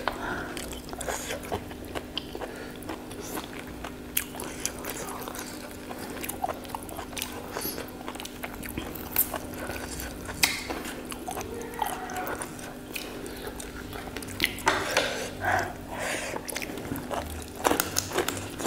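Close-miked chewing and biting of two people eating chicken and innards with their hands, full of short sharp mouth clicks and smacks, over a steady low hum.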